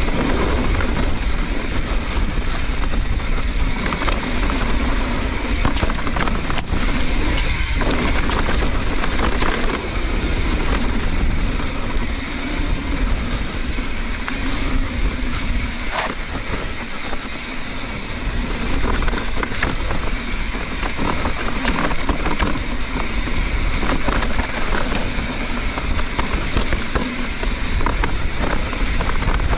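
Wind rushing over an action camera's microphone and knobby mountain bike tyres rolling over a dirt jump trail, a steady noise with a few sharp knocks from the bike.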